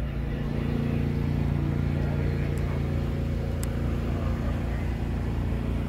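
An engine running at a steady idle, a low even hum without revving.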